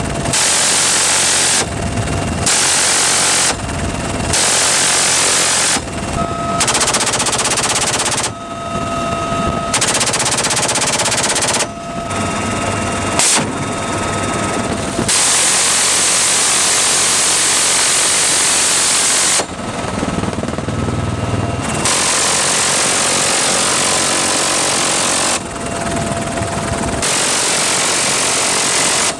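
Helicopter door guns firing about nine long bursts of very rapid fire, each lasting one to four seconds, from the UH-1Y Venom's GAU-17/A 7.62 mm minigun and GAU-21 machine gun. Between the bursts comes the helicopter's steady engine whine and rotor noise.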